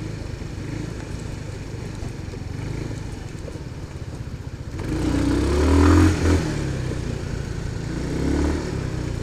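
Rusi Venus 125 scooter's single-cylinder engine running at low speed, then revving up as the scooter accelerates about five seconds in. It eases off and picks up again briefly near the end.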